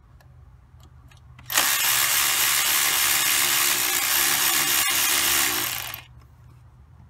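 A power tool runs steadily with a hissing whir for about four and a half seconds, starting and stopping abruptly.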